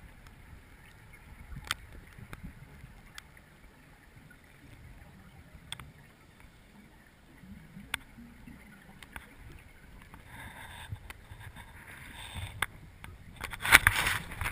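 Muffled underwater noise picked up by a GoPro in its waterproof housing: a low, uneven rumble with scattered sharp clicks, building to louder rushing bursts near the end.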